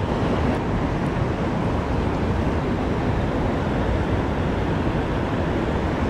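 Steady rush of a fast river current running over shallow rapids.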